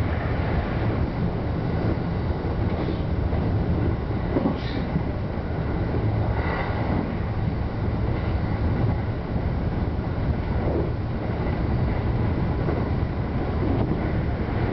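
JR West 321 series electric train running along the track, a steady rumble of wheels and running gear heard from inside the front car, with a few brief whines that bend in pitch.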